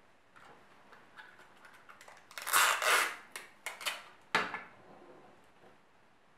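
A small metal modelling spatula scraping and pressing clay onto a styrofoam ball, a run of light scrapes and clicks. The loudest scraping comes about two and a half to three seconds in, followed by a few clicks and a sharp knock a little after four seconds.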